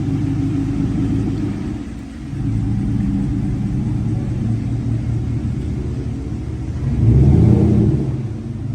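Motor vehicle engine running with a low, steady rumble, dipping briefly about two seconds in and swelling louder about seven seconds in.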